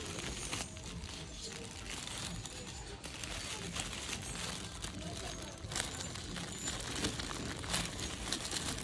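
Thrift-store background of faint voices, with crinkling and scattered light clicks from toys being handled on the shelves.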